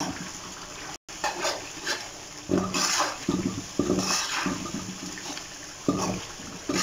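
Metal spatula stirring and scraping through chicken karahi in a karahi wok, with the thick gravy sizzling and bubbling in uneven strokes. The sound drops out briefly about a second in.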